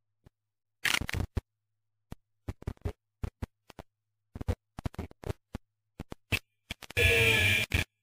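Irregular sharp clicks and scraping knocks right at the robot's camera, with a louder scratchy burst just under a second long about seven seconds in.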